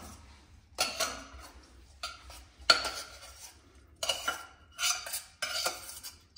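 Metal spoon scraping and knocking against a stainless-steel saucepan as cooked quinoa is spooned and tipped out into a frying pan: a string of separate clanks and scrapes with brief metallic ringing, the sharpest clank a little under three seconds in.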